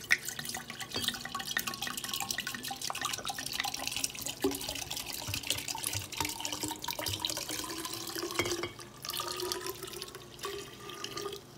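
Red wine being poured from a bottle into a glass decanter in one steady, splashing stream, its note rising slowly as the decanter fills. The pour stops just before the end.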